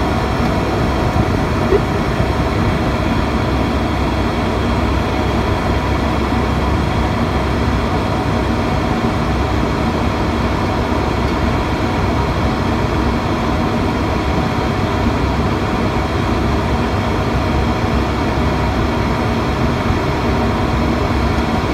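Steady drone of an ATR 72-600's twin turboprop engines and propellers, heard from inside the cockpit on approach: an even rumble and rush of air with faint steady hum tones running through it.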